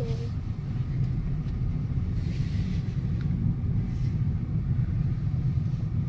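Steady low rumble of a car driving, engine and tyre noise heard from inside the cabin.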